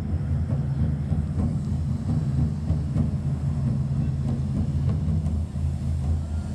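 A row of hand-held bamboo tube fireworks (tezutsu hanabi) spraying fountains of fire and sparks, making a steady, deep rushing noise.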